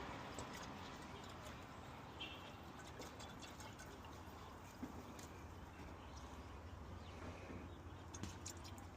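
Engine coolant being poured from a gallon jug into a radiator filler neck: a faint, steady pour, with a couple of small clicks.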